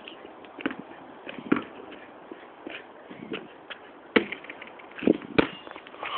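A basketball bouncing on an outdoor court: scattered, irregular thuds, the loudest about four seconds in and two more close together near the end.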